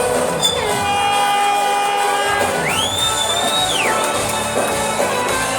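Live band music playing loud in a club, with the crowd cheering over it. About three seconds in, a high gliding tone rises, holds for about a second and falls away.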